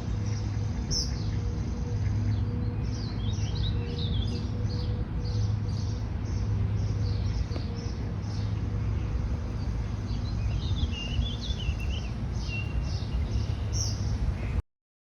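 Small birds chirping and warbling in quick, overlapping calls over a steady low hum. The sound cuts off abruptly near the end.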